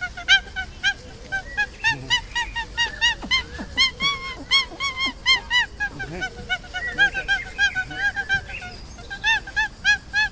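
A flock of birds honking, short goose-like calls several a second, overlapping without pause.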